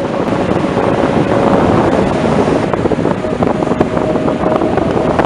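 Strong wind buffeting the microphone over the steady wash of breaking surf.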